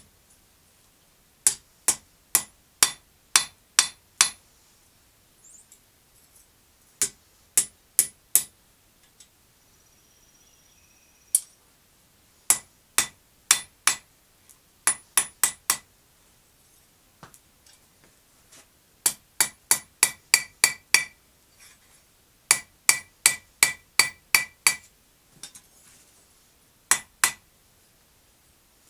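Blacksmith's hammer striking hot steel held in tongs on an anvil, each blow ringing brightly off the anvil. The blows come in bursts of several, about two to three a second, with short pauses between.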